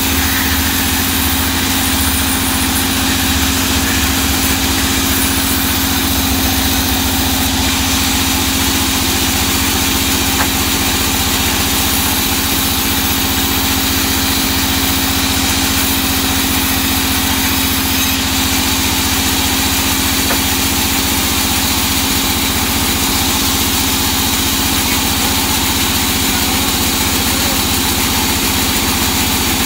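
Large vertical sawmill band saw running with a steady drone while a small teak log is pushed through the blade.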